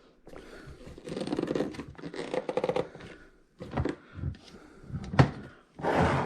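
Hands handling a rice cooker and its packaging: about two seconds of rustling and rattling, then a few knocks, a sharp click about five seconds in, and a short burst of rustling near the end.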